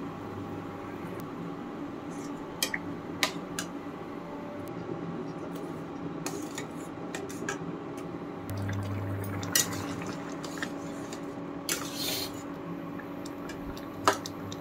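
Flat metal spatula stirring a thick, simmering dal in a steel pot, with sharp clicks and scrapes of metal against the pot every second or two. A steady low hum runs underneath.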